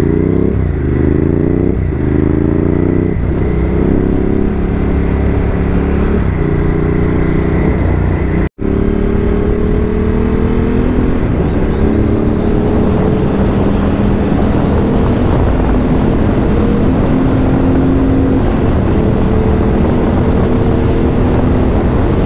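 Ducati Hypermotard 950's L-twin engine pulling away, its pitch climbing and falling back with several quick upshifts in the first three seconds. It then settles into a steady cruise with a slow rise in pitch. The sound cuts out for an instant about eight and a half seconds in.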